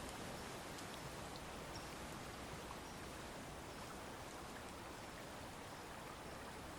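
Faint, steady woodland ambience: an even hiss with a few scattered light ticks.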